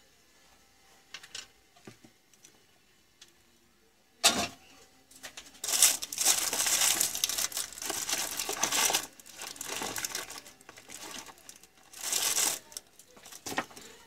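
Hands rummaging among small parts and tools on a workbench. A few light clicks and knocks come first, then a stretch of rustling and crinkling from about six to nine seconds in, and a short burst of it near the end.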